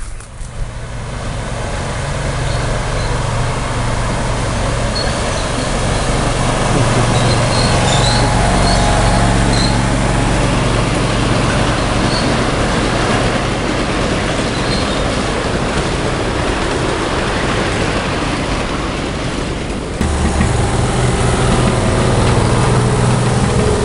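A 7½-inch-gauge ride-on miniature train rolling past on its track: a loud, steady rumble of the locomotive and the wheels on the rails, with a low hum under it. Near the end it cuts abruptly to a similar rumble from another train in a tunnel.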